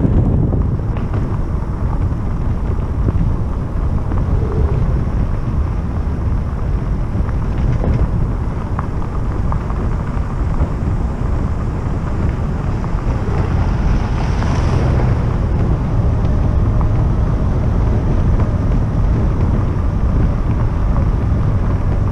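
Wind buffeting the microphone of a camera on an e-bike riding downhill, a steady low rumble, with a brief brighter hiss about two-thirds of the way through.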